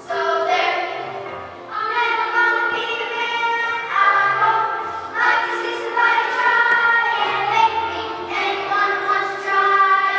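Two boys singing a show tune together into a microphone over musical accompaniment.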